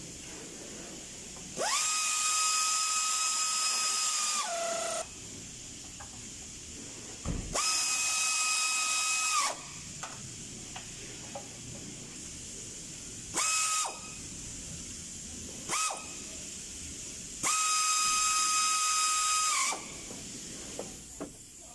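Pneumatic air ratchet running in five bursts on the spark plugs, three long and two short, each a steady high whine with air hiss that rises quickly in pitch at the start and cuts off sharply.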